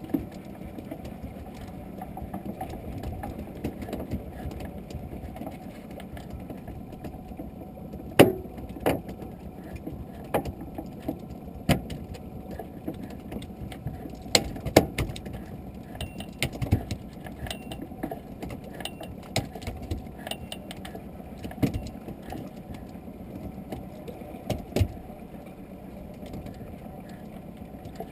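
Small open boat rocking at sea: a steady, muffled low wash of water against the hull, with irregular sharp knocks and clicks from the boat and fishing gear.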